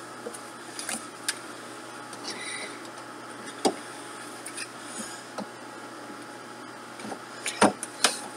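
Dolls being handled and set down in a toy dollhouse: scattered light taps and knocks with some rustling, a sharper knock a few seconds in and a louder cluster of knocks near the end.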